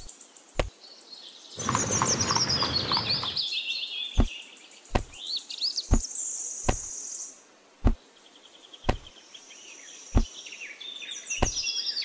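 Birds chirping throughout in many short high calls. Sharp single clicks of small pebbles knock together every second or so as they are handled. A rough noise lasting nearly two seconds starts about two seconds in.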